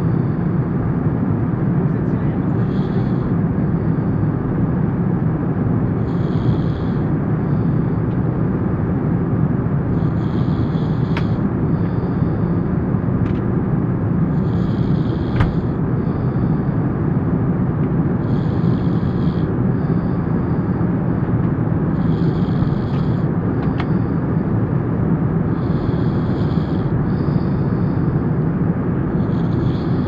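Steady drone of a plane's cabin, with a person snoring over it about every four seconds: each snore lasts about a second and is followed by a shorter, softer breath.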